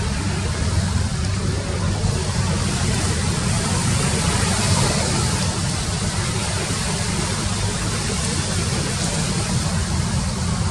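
Passenger ship's engines running with a steady low rumble under a constant hiss.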